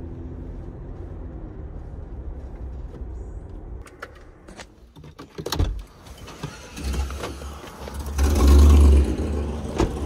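Road and engine rumble inside a moving Toyota 4Runner, steady for about four seconds. It then falls away, followed by a few sharp clicks and a knock. A loud, low rush comes about two-thirds of the way through.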